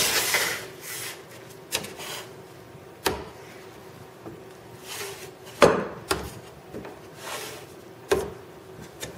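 Homemade wooden lever fluting tool clamping down on the aluminium flange of a wing rib: about five sharp knocks at uneven intervals, with the sheet-metal rib scraping and sliding on the bench between them. The flutes shrink the flange to take the bow out of the rib.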